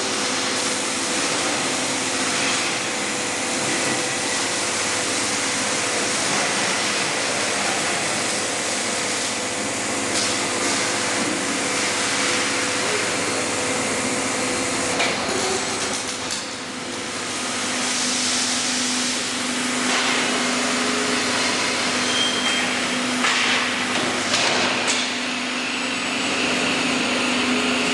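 Steady machine noise from a robotic press-brake bending cell: a continuous hiss with a faint hum, broken by a few sharp metallic knocks.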